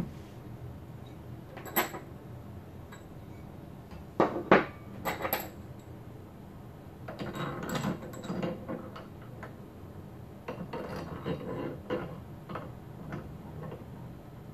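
Metal antenna-mount bracket parts and a long bolt being handled and knocked together: sharp knocks about 2 s in and twice about 4 to 5 s in, then irregular clattering and scraping of metal on metal.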